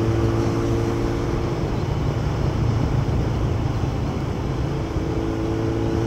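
Kawasaki superbike engine and exhaust heard from the saddle while cruising, with wind and road noise. The steady engine note fades about a second and a half in as the throttle eases, then returns and starts to climb near the end.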